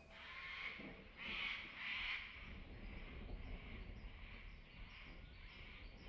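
Raspy animal calls repeating about twice a second, loudest in the first two seconds and then softer, over a low steady wash of rain in a rainforest.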